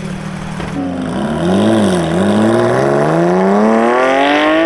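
Sports car engine accelerating hard: the engine note climbs, dips briefly about two seconds in, then rises steadily to high revs.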